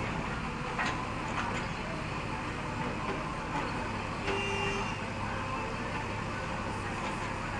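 Diesel engine of a JCB backhoe loader running steadily under load while its backhoe arm works, with a few short knocks.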